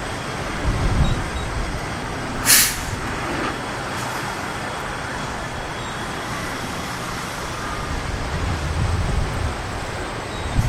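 Steady rumble of vehicle noise, with one short sharp hiss about two and a half seconds in.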